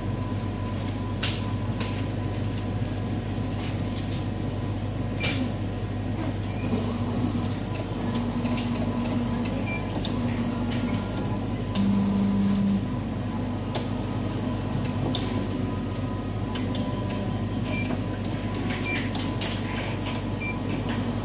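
Cornley K-Lite 3 electrolyte analyzer working through a QC sample test: a steady machine hum with its motor running in short stretches, loudest about twelve seconds in, plus scattered clicks and a few short keypad beeps near the end.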